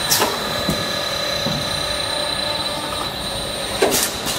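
Automatic servo piston filling line running: a steady mechanical noise with a thin, high, steady whine. Sharp clacks from the machine come just after the start and twice close together near the end.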